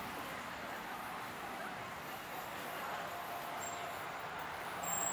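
Steady city street ambience: an even wash of background noise.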